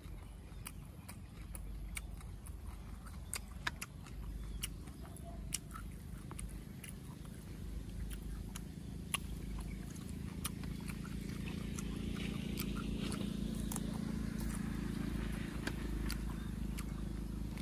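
Close-up chewing of boiled pig stomach: wet mouth clicks and smacks as the chewy meat is bitten and worked. A low steady hum grows louder in the background over the second half.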